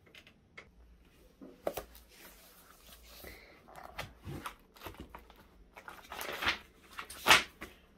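Paper handling: a spiral-bound report picked up and its pages turned, with scattered soft clicks and rustles and a sharper rustle near the end.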